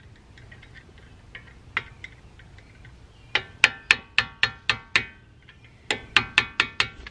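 Hammer tapping the end of a screwdriver held against the pad retaining pin of a Brembo brake caliper, driving the pin out. Two runs of quick, light taps, about three or four a second and each with a brief metallic ring, begin about three seconds in.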